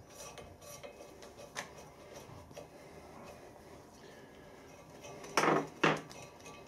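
Faint clicks and scraping of a thread tap being turned by hand in a cast-iron flywheel hub, with two short, louder noises about five and a half seconds in.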